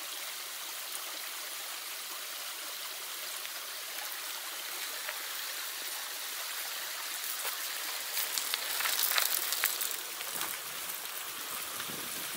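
Water running steadily in a small stream channel with a constant rushing sound. About eight to ten seconds in there are a few crunches and a slight rise in level as a mountain bike rolls past on the gravel path.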